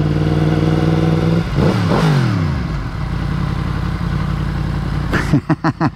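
Yamaha FZ-10's crossplane inline-four engine running at a steady speed, then its revs falling away about a second and a half in as the bike slows. A few short sharp sounds come near the end.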